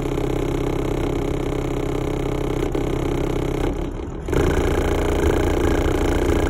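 Bass-heavy rap music played loud through two 18-inch H.A. Monolith subwoofers on a Lanzar Opti 4001D amplifier, heard outside the vehicle with the body panels rattling. The music dips for a moment about four seconds in, then comes back louder.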